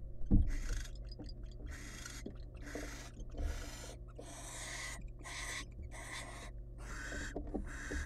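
Barn owls giving a run of harsh, breathy hisses, about one or two a second, the begging hiss as prey is brought into the nest box. A heavy thump just after the start as the adult owl lands on the box.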